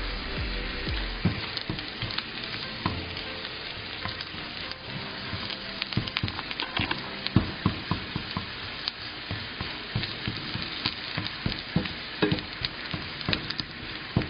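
Eggplant slices frying lightly in olive oil in a nonstick pan: a steady sizzle broken by scattered sharp crackles and taps as a silicone spatula turns them.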